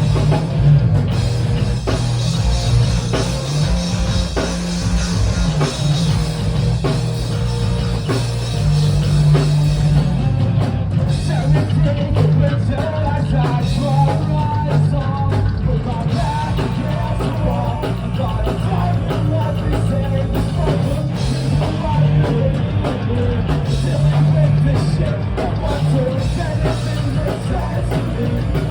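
Rock band playing, with drum kit, heavy bass and a voice singing.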